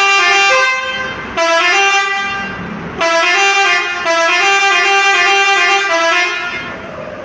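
Bus 'telolet' horn: a multi-tone air horn playing a tune of held notes that step in pitch, sounded in three long blasts, the second starting about a second and a half in and the third about three seconds in.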